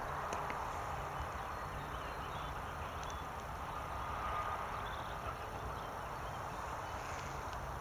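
Steady wind noise on the microphone, with a few faint bird chirps in open country.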